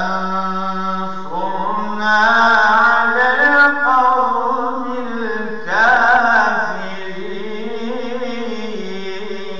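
A man reciting the Quran in a melodic chant: long drawn-out phrases with ornamented turns, the pitch rising and falling. It swells twice, then settles into a softer held note near the end.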